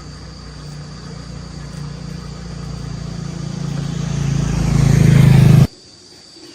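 A motor running with a steady low hum, growing steadily louder for about five seconds and then cutting off abruptly.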